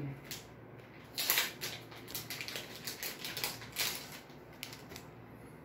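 Cardboard box and plastic wrapping being handled: a scatter of short rustles and knocks, about seven in all, the loudest about a second in.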